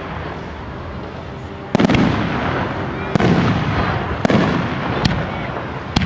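Fireworks display: aerial shells bursting in a string of sharp bangs, about one a second starting nearly two seconds in, each trailing off into a low rumble.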